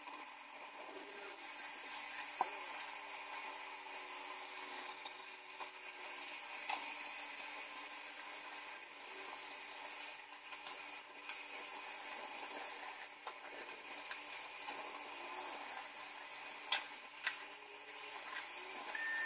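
Kitchen faucet running steadily, water splashing onto wet hair and into a stainless-steel sink as hands rinse the hair, with a few small knocks.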